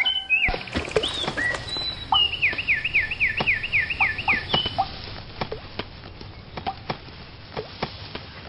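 Cartoon bird chirps and whistles: short chirps, then a quick run of about eight falling whistles, roughly four a second, followed by scattered light clicks.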